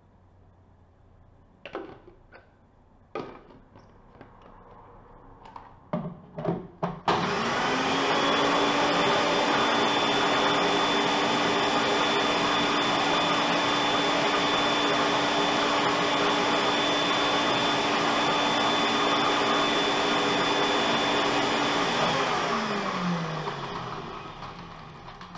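Sencor Nutri Blend 1000 W personal blender grinding dry bread roll into breadcrumbs. A few plastic clicks and knocks as the cup is fitted to the base, then the motor starts abruptly, runs at a steady pitch for about fifteen seconds, and winds down with a falling pitch.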